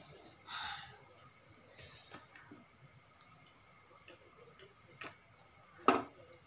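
Light, scattered clicks and taps of metal forks against plates and tableware, with one sharp, louder knock near the end as a drinking glass is set down on the table.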